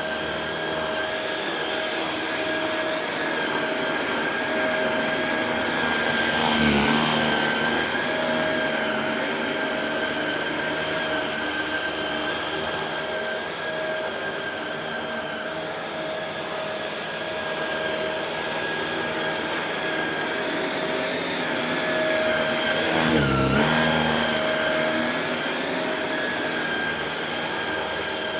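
Shark Rotator Pro Lift-Away NV500 upright vacuum running on carpet, a steady, loud motor whine. Twice the pitch briefly dips and the sound swells, about a quarter of the way in and again near the end.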